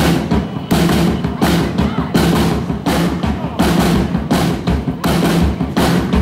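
Rockabilly trio playing live: upright bass and drums keep a steady beat, with a sharp hand clap on the beat about every three-quarters of a second.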